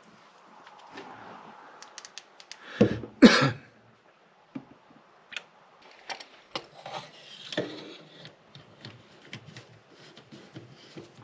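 Scattered light clicks and knocks of plastic parts being handled at a brake master cylinder reservoir as its cap with the low-level indicator is fitted. Two louder knocks come close together about three seconds in.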